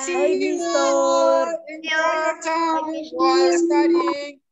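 Children's voices over a video call calling out long, drawn-out, sing-song goodbyes. The held notes come in several phrases with short breaks, and sometimes two voices overlap.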